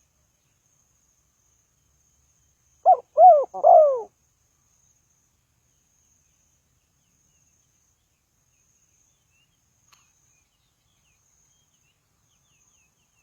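Spotted dove calling once: three quick, soft cooing notes, each rising and falling in pitch, the last one longest.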